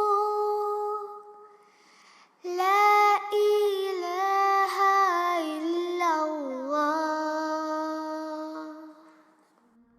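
A single high voice singing the closing lines of an Arabic naat: a held note that fades out, then after a short pause a long drawn-out phrase that slides down in pitch and fades away near the end.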